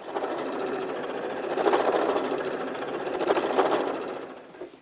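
Janome sewing machine running at speed, its needle stitching rapidly through layered quilted cotton to sew a seam. It starts abruptly and slows to a stop near the end.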